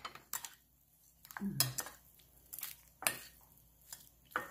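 A spoon knocking and scraping against a glass mixing bowl as noodles and toppings are tossed, in several short, separate strokes.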